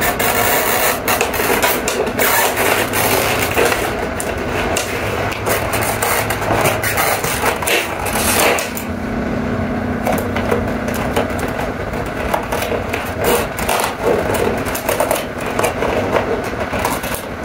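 Cardboard advent calendar box being handled and its perforated doors pried open: a busy run of scraping, rubbing and small clicks of cardboard.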